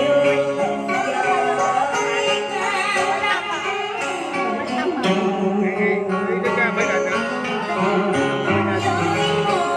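Music playing: the accompaniment of a Vietnamese tân cổ song.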